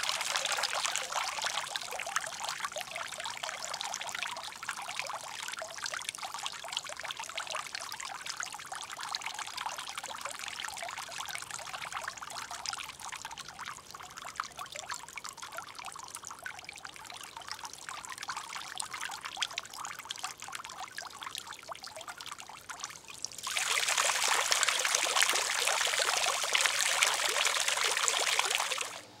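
Small fountain jets from a ring of copper tubing falling and splashing into a shallow basin of water. The splashing slowly weakens as the jets sink to a low dribble, then comes back suddenly at full strength near the end as the jets shoot up again.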